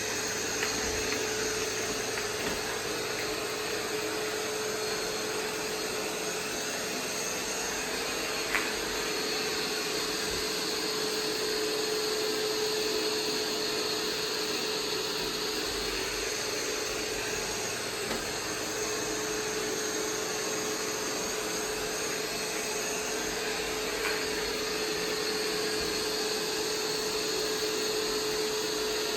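Roomba 505 robot vacuum running steadily, a motor and brush whir with a constant hum, picking up paper scraps; a few light clicks, the sharpest about eight and a half seconds in.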